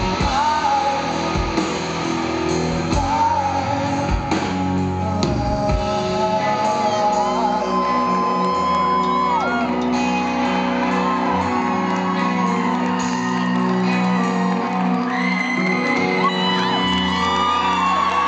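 Live rock band playing loudly in a large hall, with electric guitars holding sustained chords and bending notes. Audience members shout and whoop over the music.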